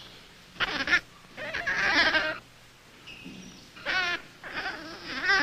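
Infant rhesus monkey calling: several high, wavering cries in quick succession.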